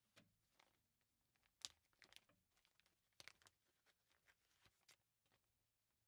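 Faint crinkling and crackling of a plastic anti-static bag handled as a RAM module is drawn out of it, with a couple of sharper crackles about one and a half and three seconds in.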